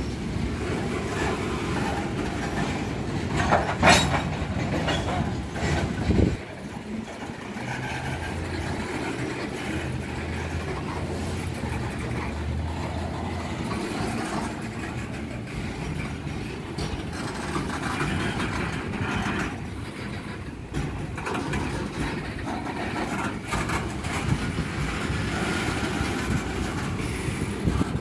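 Loaded freight cars rolling slowly over a street grade crossing, their steel wheels rumbling and clattering over the rail joints. Louder sharp clanks come about four and six seconds in.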